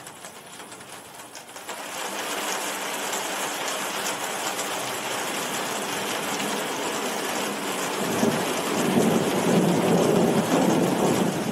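Heavy rain falling as a steady hiss, growing louder about two seconds in. About eight seconds in, a deep rumble of thunder swells up under the rain and becomes the loudest part.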